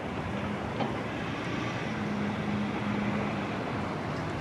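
Steady outdoor background rumble of traffic, with a faint steady engine hum for about three seconds in the middle.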